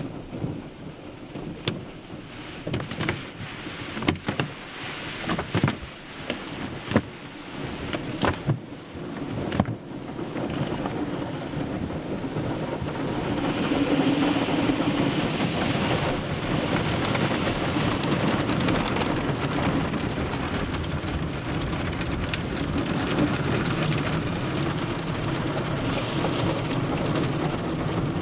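Automatic car wash heard from inside the car: for about the first ten seconds, irregular thumps and slaps on the body, then a steady rush of water spray and scrubbing cloth brushes across the glass and body.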